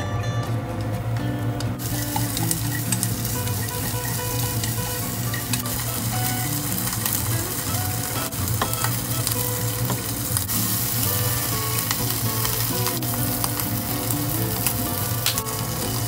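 Sliced onion frying in hot oil in a frying pan: a steady sizzle that starts about two seconds in, as the onion goes into the pan, with a few light taps of the spatula stirring.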